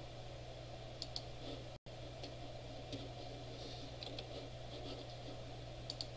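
A few sharp computer mouse clicks, a pair about a second in and another pair near the end with fainter ticks between, over a steady low hum of room noise. The sound cuts out completely for an instant just before two seconds.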